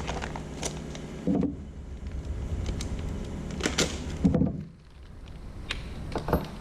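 Bolts and kit hardware being handled, a series of light clicks and knocks.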